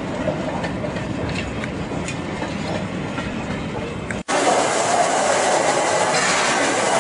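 Passenger coaches rolling slowly past, their wheels clicking over the rail joints. About four seconds in the sound cuts abruptly to a louder, steady rushing noise.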